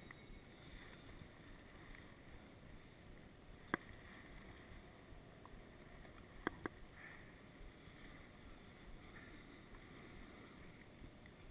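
Faint steady hiss of skis sliding over packed snow on a run. A single sharp click about a third of the way in and a quick double click a little past halfway.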